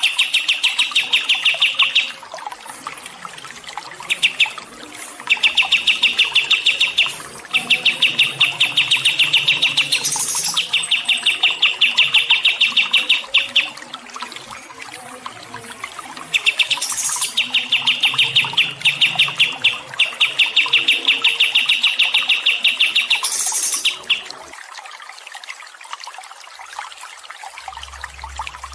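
A small songbird calling in runs of rapid, evenly repeated high chirps, about seven a second, each run lasting two to three seconds with short pauses between. A few sharper, higher notes break in between runs. The calling stops near the end.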